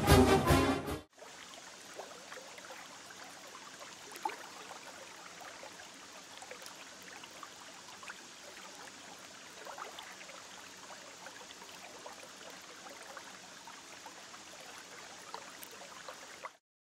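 Music ends about a second in. Then a small waterfall runs into a woodland pool: a faint, steady trickle and splash with scattered drips, which cuts off just before the end.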